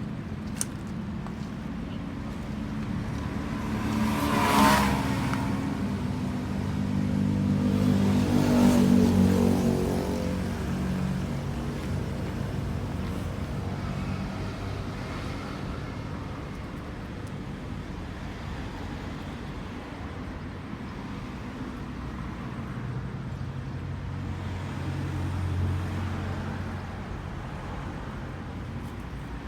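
Excavator's diesel engine running steadily, swelling louder twice in the first ten seconds and once more near the end as it works.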